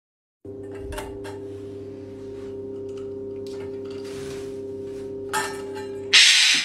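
A stainless steel food bowl rings with a steady hum as a parrot rattles and spins it in its ring holder on the perch, with a few light clinks along the way. A loud, harsh clatter comes just before the end.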